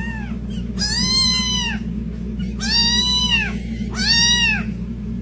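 Domestic cat meowing: three drawn-out calls about a second long, each rising and then falling in pitch, over a steady low hum.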